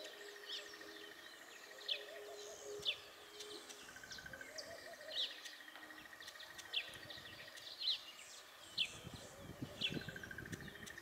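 Birds chirping, short sharp high notes about once a second, over a steady pulsing insect trill and fainter warbling birdsong in the background.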